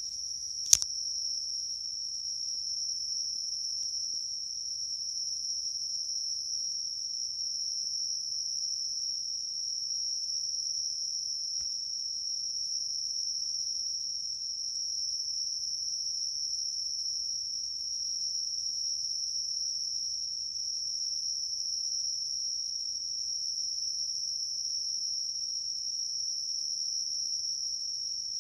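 An insect singing at night: one unbroken, high-pitched, steady trill, sounding like something between a cricket and a cicada. A single sharp click comes about a second in.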